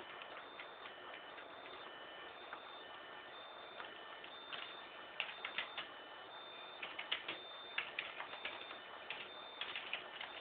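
Unidentified electronic beeping: steady high tones at two pitches switching on and off in beeps of uneven length, mixed with irregular bunches of quick clicks.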